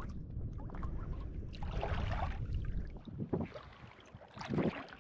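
Water splashing and sloshing around a kayak as a swimmer kicks up and hauls herself back aboard from the water, in a few bursts, the biggest about a second and a half in. Wind rumbles on the microphone throughout.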